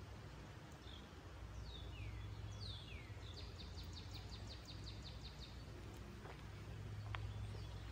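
A songbird calling: a few high downward-slurred whistles, then a fast trill of about a dozen notes. Under it runs a faint steady low hum, with a couple of light clicks near the end.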